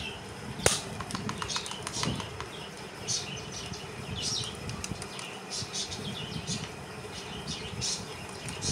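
A kitchen knife blade knocking and scraping against a live crab's shell on a hard tiled surface. There is a sharp click about a second in, then a quick run of light ticks, and the crab's legs scrabble and rustle.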